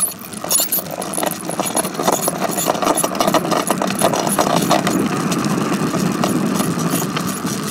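Bicycle rattling as it is ridden along a road: a continuous rumble with many small clicks and knocks.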